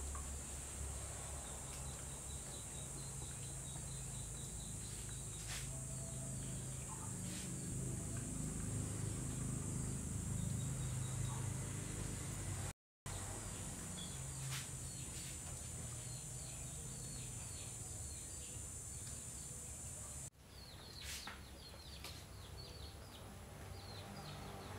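Background ambience: a steady high insect drone with faint bird chirps and a few scattered clicks, over a low rumble that swells in the middle. The sound cuts out for a moment a little past halfway.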